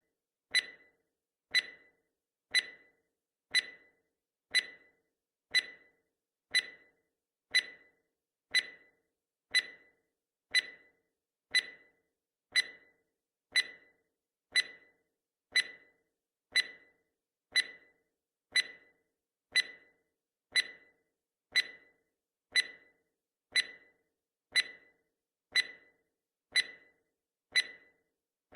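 Countdown timer sound effect ticking like a clock, one short sharp tick every second with a quick fade after each.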